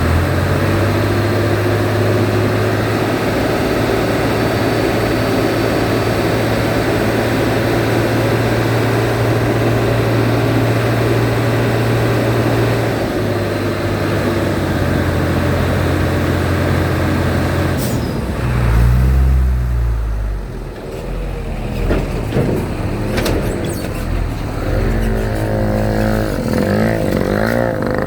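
Heavy vehicle engines running close by, a loud steady low drone that changes about two-thirds of the way through into a more uneven rumble with rising and falling engine notes.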